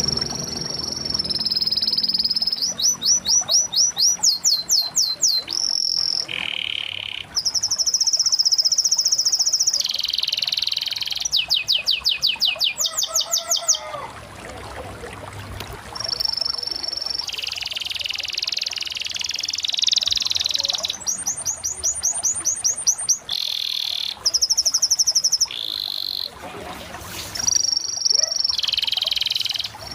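Canary singing a long rolling song: phrases of rapid repeated notes alternate with held high whistles and rising and falling sweeps. There is a brief lull about halfway through.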